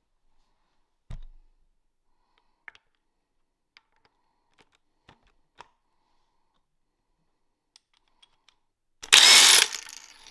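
Cordless impact wrench: a knock about a second in and a few faint clicks as it is handled and its socket fitted to the K20 crank pulley bolt, then, near the end, a short loud burst as it runs and spins out the already-loosened bolt.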